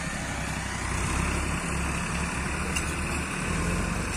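Ford 3630 tractor's diesel engine running under load as it pulls a heavily loaded sugarcane trolley through a field, a steady low throb.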